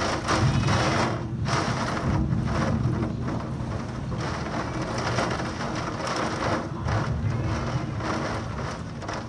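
Heavy thunderstorm rain pouring down steadily, with a low rumble underneath.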